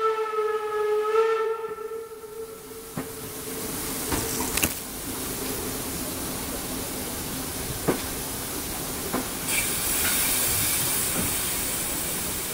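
Steam locomotive whistle blowing a long blast that stops about two seconds in. Then the train rolls on at low speed, with a few irregular knocks from the running gear over the track and a steady steam hiss that grows louder near the end.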